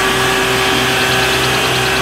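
Isuzu water tanker truck's diesel engine running steadily to drive its roof-mounted water cannon, with a steady whine and the hiss of the water jet.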